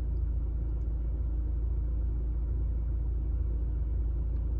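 Steady low rumble with a faint hum, unchanging throughout, with no distinct events.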